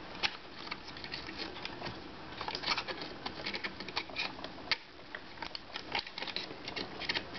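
Irregular small clicks and taps of a circuit-board module being handled and fitted into a netbook's plastic case, with a denser run of clicks a little before the middle.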